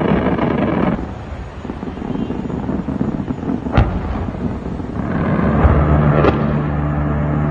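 A C-RAM automated 20 mm six-barrel Gatling gun firing a long continuous burst, heard from about five and a half seconds in as a steady low buzz. A single sharp bang comes near the four-second mark.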